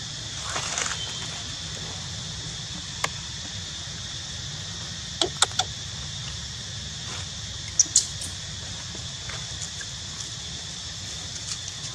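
Steady outdoor hiss with a faint constant high whine, broken by a short scratchy rustle near the start and a few sharp clicks and taps, three close together in the middle and two more a little later, as macaques move over stone and dry leaves.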